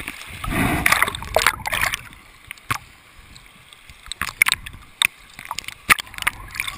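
River water splashing and gurgling against a camera held at the surface of a fast, rocky river, with a louder rush of water from about half a second to two seconds in and scattered sharp splashes and clicks after. Near the end the camera dips underwater.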